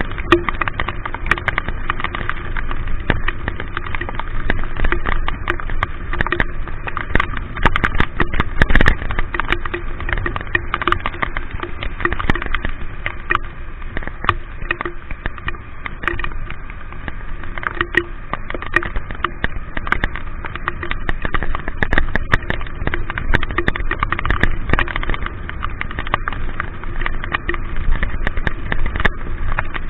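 Rain and wind noise on a rider's camera while moving through traffic in the rain, with many small raindrop clicks against it and a faint steady engine hum underneath.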